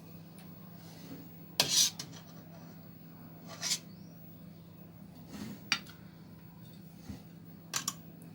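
Scattered clinks and scrapes of a utensil against cookware, four or five separate clatters with the loudest a little under two seconds in, over a low steady hum.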